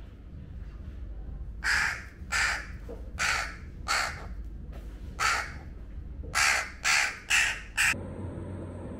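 A young crow cawing repeatedly with its beak wide open, begging to be fed by hand: about nine caws, the last few coming in quicker succession.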